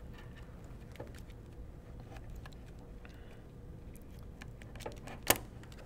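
Small metal screws and nuts clicking faintly as they are picked up and fitted to a clear plastic bed plate, with one sharp click near the end.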